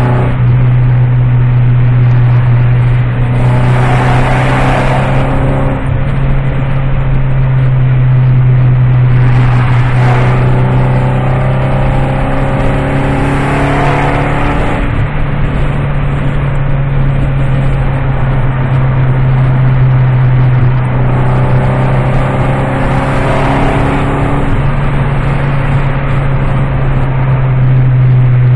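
Ford Focus 2.5's exhaust rumbling loudly with a steady deep drone, swelling about four times as the engine note rises.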